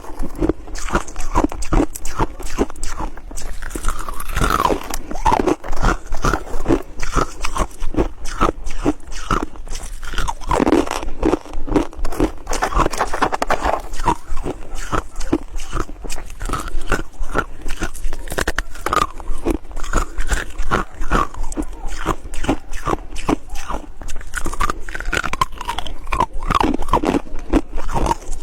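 Ice being bitten and chewed close to the microphone: loud, rapid, continuous crunching with a dense run of crisp crunches.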